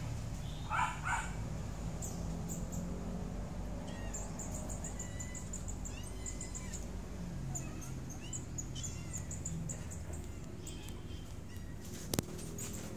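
A dog barks twice about a second in, then small birds chirp on and off in the trees, over a steady low background hum; a single sharp click sounds near the end.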